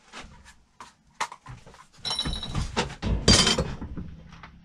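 Small metal clicks and clinks of hand tools on steel parts, then, about two seconds in, a loud metal clatter ending in a sharp clang that rings briefly: a tool or part dropped onto metal.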